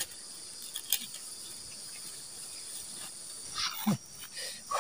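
Steady high-pitched insect chirring from the surrounding vegetation, with a few short clicks and knocks, most of them about three and a half to four seconds in.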